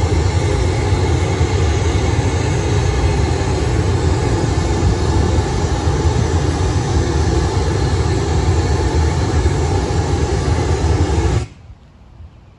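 Pink noise test signal blasting steadily from a loudspeaker, heavy in the bass, played to measure how much sound the building's walls block. It switches off abruptly near the end.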